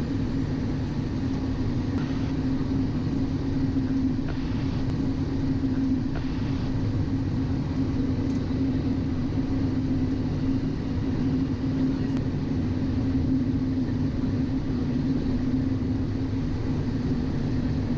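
Steady cockpit noise of a Cessna Citation XL business jet on final approach with gear and flaps down: a constant rumble of the jet engines and airflow, with a steady hum.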